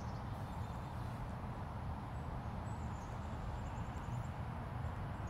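Steady low rumble of distant road traffic, with a few faint high bird chirps now and then.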